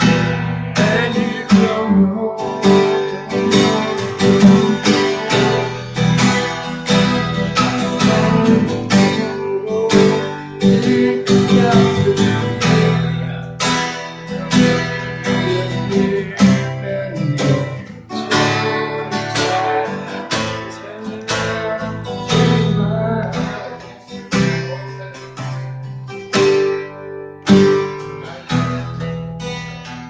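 Acoustic guitar strummed in a quick, steady rhythm, played live.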